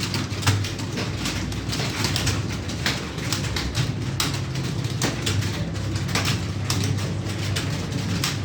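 Computer keyboard keys clacking in quick, irregular strokes during a timed typing test, over a steady low hum.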